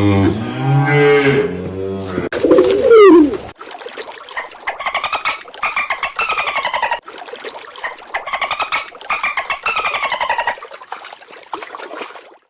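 Animal calls: a low, drawn-out call with a strong pitch for the first few seconds, ending in a gliding call, then a run of higher bird calls, each falling in pitch, repeating every second or two until shortly before the end.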